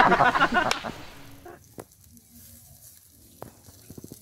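Voices fade out over the first second, then meat sizzles faintly over the fire of a smoking fire-bowl grill, with a few sharp crackles.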